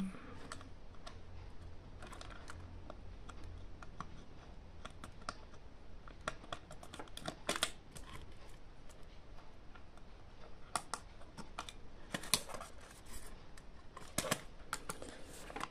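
Scattered small clicks, taps and scrapes of wire connectors being plugged in and handled during hand assembly of a power supply, over a faint low hum in the first few seconds.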